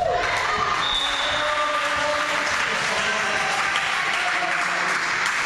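Players and spectators cheering and clapping, with shouted voices, as a volleyball rally ends. A single shout comes right at the start, and a steady clatter of claps and voices follows.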